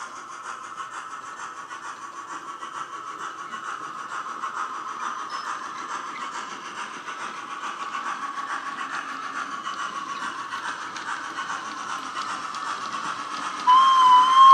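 Digital sound of an LNER V2 steam locomotive from a LokSound 5 decoder, played through the model's small built-in speaker: steady exhaust chuffs growing gradually louder, then a loud whistle blast starting just before the end.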